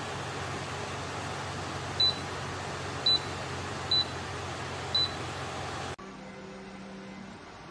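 Dreo tower fan blowing steadily, with four short high beeps about a second apart, typical of its control panel acknowledging button presses. About six seconds in, the fan noise drops abruptly to a much quieter background.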